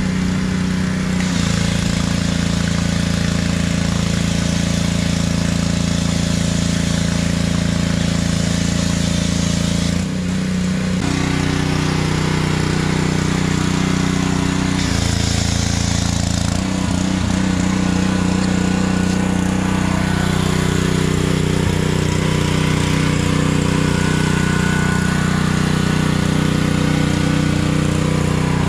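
Gas-engine pressure washer running steadily while a foam cannon sprays, with the hiss of the spray over the engine; the spray breaks off briefly about ten seconds in, then resumes. The pressure washer is loud.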